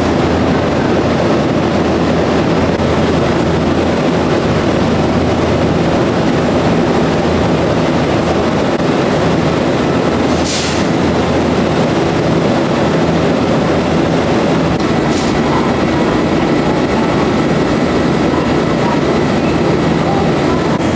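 Steady rumble of a 2270-series electric train running along the track, heard at an even level as from inside the car, with two brief sharp clacks about halfway through.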